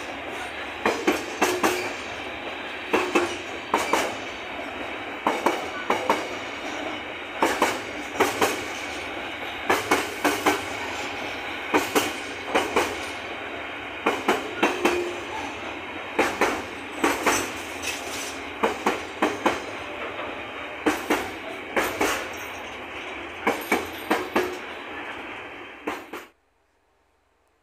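Container freight train's wagons rolling steadily past, the wheels clattering over the rail joints in quick groups of clicks about once a second. The sound cuts off suddenly near the end.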